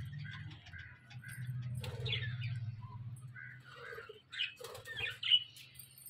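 Budgerigars chirping and chattering, with a few louder bursts of wing flapping as birds take off from a perch, over a low steady hum.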